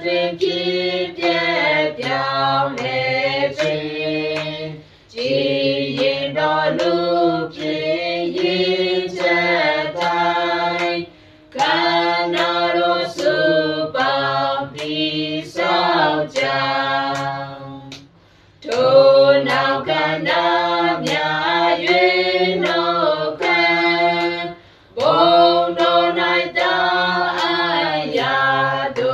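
A small mixed group of men and women singing a Burmese hymn unaccompanied, in phrases with short pauses between them. Light hand claps keep a steady beat under the voices.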